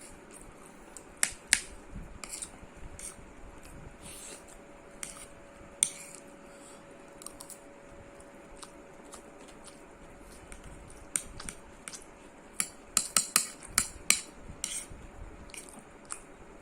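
Close-miked eating of chicken fried rice and kebab: scattered sharp wet clicks and smacks of chewing, a few early and a quick run of them in the second half. A faint steady hum runs underneath.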